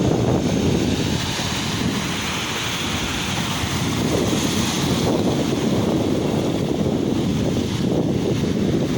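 Sea waves washing on the shore under strong wind buffeting the microphone, a steady rumbling rush with a hiss that swells and fades through the middle.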